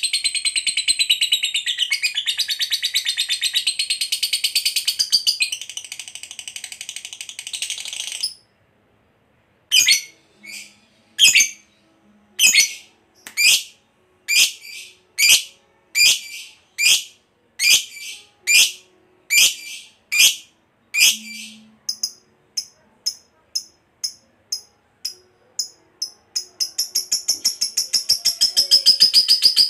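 Lovebird's long rapid chattering trill (ngekek panjang) for about eight seconds, then it breaks off. After a brief pause comes a string of more than a dozen separate sharp chirps about one a second, then softer quick chirps, and the long rapid chatter starts up again near the end.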